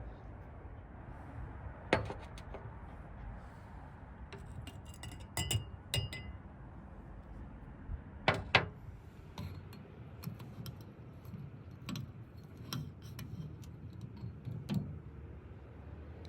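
Kitchenware being handled: scattered clinks and knocks of glass and utensils, a few of them ringing briefly, over a low steady background.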